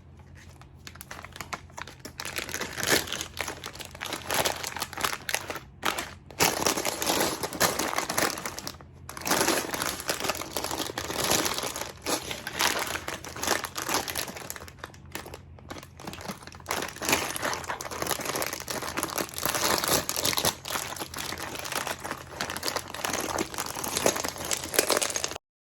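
Crinkling and rustling of plastic packaging from a toy building-brick set, handled almost continuously as bags and boxes are opened. A faint steady low hum runs underneath, and the sound cuts off abruptly just before the end.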